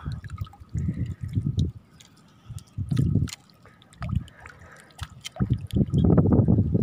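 Wading through shallow water and soft mud: uneven sloshing, squelching steps in short bursts with quiet gaps between, getting busier near the end.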